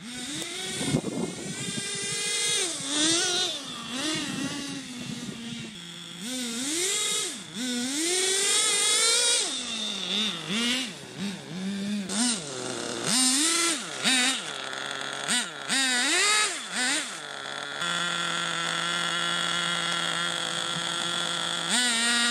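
Small two-stroke nitro glow engine of a water-cooled RC snowmobile revving up and down as it drives on snow, its pitch rising and falling over and over. About eighteen seconds in it settles to a steady idle.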